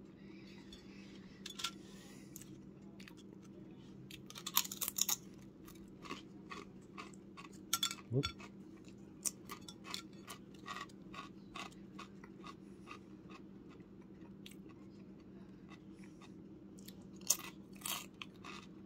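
Close-up chewing and crunching of baked potato chips: irregular crisp crunches, with louder bursts of bites about four and a half seconds in, about eight seconds in, and near the end.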